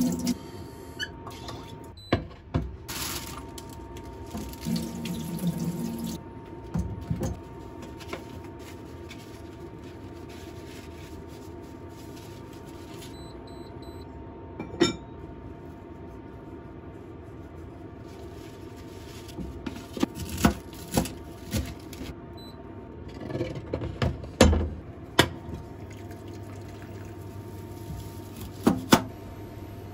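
Kitchen sounds of food preparation: water running from a sink tap, and scattered clinks and knocks of dishes and utensils, over a steady faint hum.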